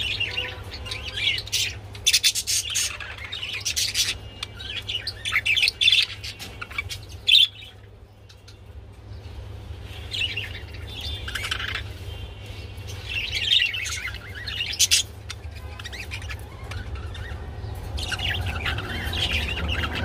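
Budgerigars chirping and warbling in repeated bursts, with a brief lull near the middle, over a steady low hum.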